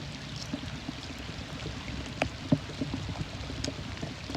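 Steady rain noise with scattered small ticks of drops, and a few sharper clicks about two and a half seconds in and again near the end.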